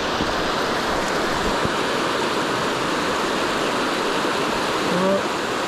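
Small stream in high flow rushing over rocky riffles: a steady rush of white water.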